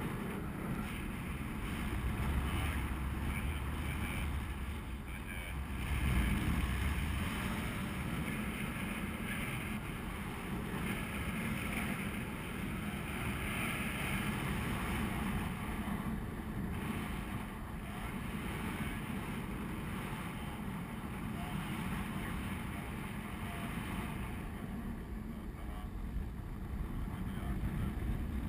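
Wind rushing over the microphone of a camera worn by a paraglider pilot in flight: a steady rumbling hiss that swells louder about six seconds in.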